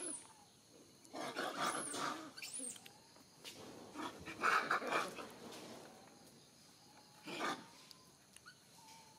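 Macaques calling: bursts of rough, barking monkey calls with high squeals, about two seconds in and again around four to five seconds, then one short call about seven and a half seconds in.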